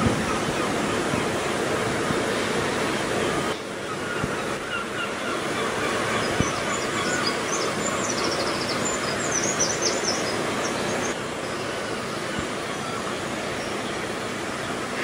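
Steady rushing outdoor noise that drops in level twice, with faint short chirps in the middle.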